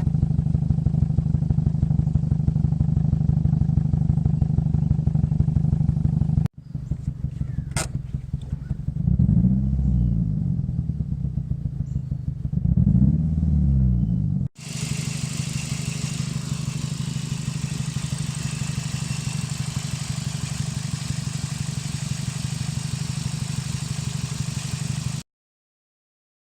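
2005 Scion xB's 1.5-litre four-cylinder engine idling roughly and unevenly, misfiring because a bad coil pack on cylinder 4 keeps that plug from firing. In the middle stretch it is revved twice, rising and falling, and the sound cuts off near the end.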